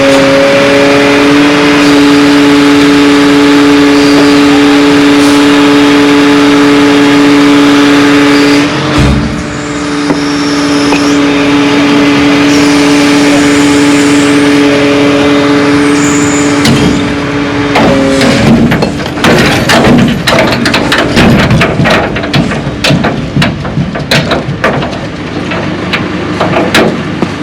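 Skip lorry's diesel engine held at raised, steady revs while its hydraulics work, a loud even drone that dips briefly partway through. About two-thirds of the way in it gives way to a rapid run of clanking and knocking.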